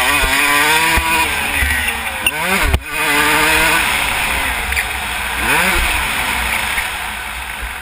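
Motocross dirt bike engine revving up and down as the rider works the throttle through the gears, with a sharp throttle cut about three seconds in and another rev a couple of seconds later. The engine eases off near the end as the bike slows. Wind rushes across the helmet-camera microphone throughout.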